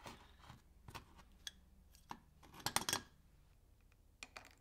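Light clicks and clinks of cut stainless-steel plates being handled and stacked, with a quick cluster of clicks about three seconds in. Two sharp ticks near the end come from small spring clamps being squeezed onto a plate stack.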